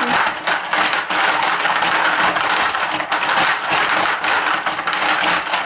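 Hungry Hungry Hippos plastic game board in frantic play: hippo levers being hammered and the plastic hippo jaws clacking, with marbles rattling across the board. The clicks come in a dense, rapid clatter without a break.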